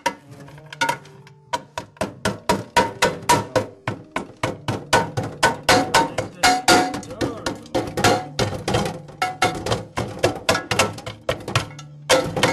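Dry ice being chopped and broken up with a knife in a metal pot: a fast run of sharp knocks and clinks, roughly three to four a second.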